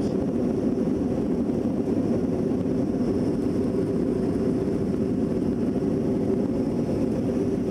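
Steady cabin noise of a jet airliner in its climb after takeoff: an even, unbroken low rumble of engines and airflow heard inside the cabin at a window seat.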